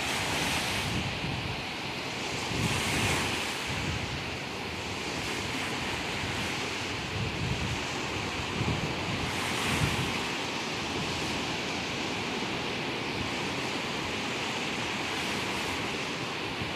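Ocean surf breaking and washing onto a beach, with wind buffeting the microphone. The waves swell louder about three seconds in and again near ten seconds.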